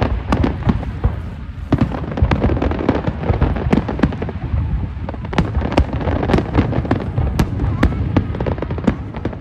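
Aerial firework shells bursting in a dense barrage: a steady stream of sharp bangs and crackles, several a second, over a continuous low rumble.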